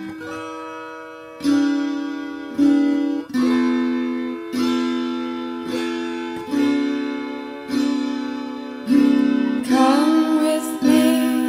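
Recorded music: slow plucked guitar notes, each ringing out and fading, about one a second, with a singing voice joining near the end.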